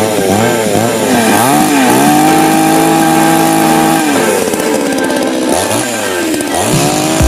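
Chainsaw engine revving up and down repeatedly, holding a steady high rev for about two seconds in the middle before dropping and revving again.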